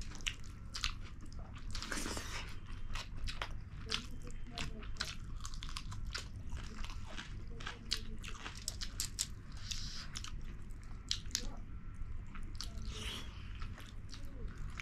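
Close-up mouth sounds of people eating king fish curry with rice: wet chewing, smacking and many small sharp clicks, over a steady low hum.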